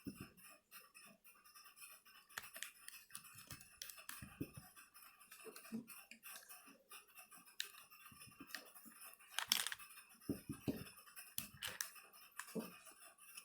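Faint, scattered clicks, taps and light scrapes of small tools and plastic and metal laptop parts being handled, with a busier run of clicks near the end.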